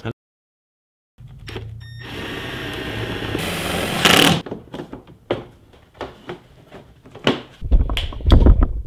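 Cordless drill-driver running for about two seconds, getting louder as it drives a screw into the snowmobile's plastic side panel, then cutting off. Scattered clicks and knocks of the panels being handled follow, with a few heavy thumps near the end.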